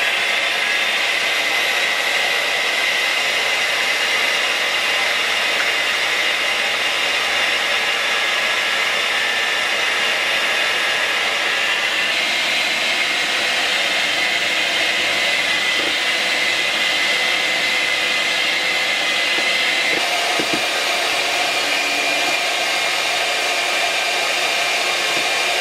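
Old electric hand mixer running steadily, its beaters whipping egg whites into a foam in a stainless steel bowl. The motor's high whine shifts slightly in pitch twice, about 12 and 20 seconds in.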